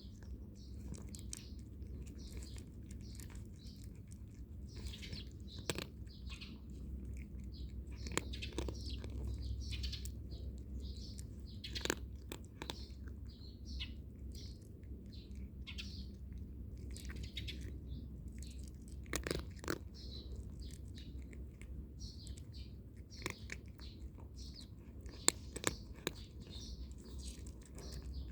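A cat crunching dry kibble: irregular crisp crunches throughout, over a low steady hum.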